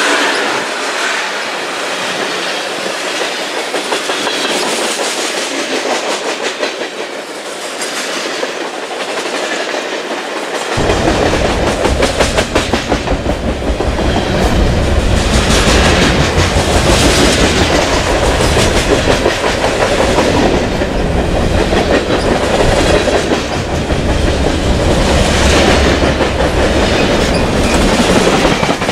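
Freight train cars rolling past, with a steady clickety-clack of steel wheels over the rail joints. About eleven seconds in, the sound turns suddenly deeper and louder as intermodal cars and boxcars pass close by at speed.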